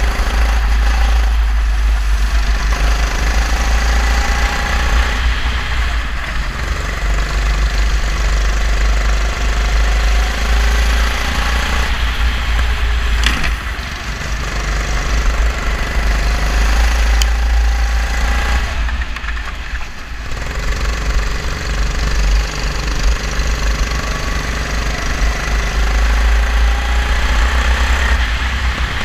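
Go-kart engine heard on board from the driver's helmet at racing speed, its note dropping and climbing again a few times as the driver lifts off for corners and accelerates out. Heavy wind rumble on the microphone runs underneath.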